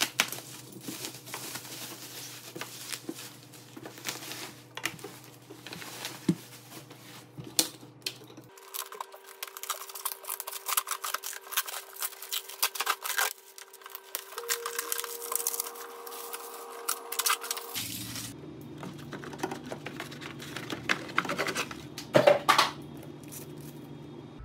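Plastic bubble wrap and protective film being pulled and torn off, with irregular crinkling, rustling and tearing crackles.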